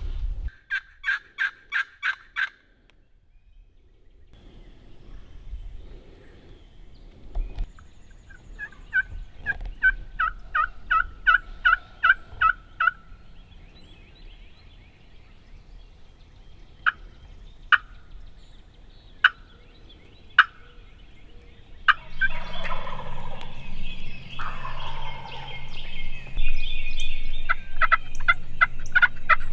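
Wild turkeys calling: runs of evenly spaced yelps, a few sharp single clucks, and a longer, louder gobble about two-thirds of the way through.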